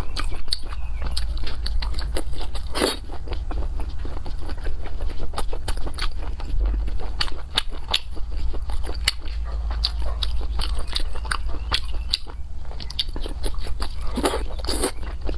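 Close-miked chewing and biting of braised pork belly: a steady run of short mouth clicks and smacks. There is a louder bite near the end as another piece goes in. A low hum runs underneath.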